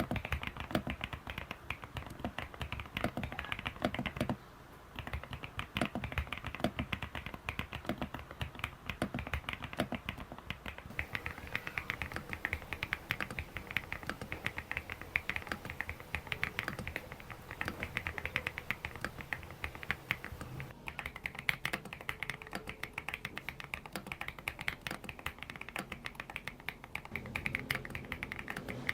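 Typing on a mechanical keyboard: fast, continuous keystroke clicks and clacks, with a brief pause about four seconds in.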